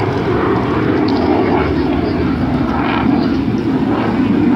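F-16 fighter jet's engine noise, loud and steady with a deep rumble, from a jet flying its display.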